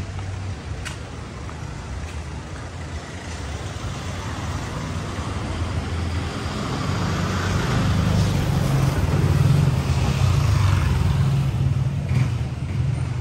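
Diesel engine of a jeepney running close by, with a low rumble over general street traffic; it grows louder through the middle and eases slightly near the end.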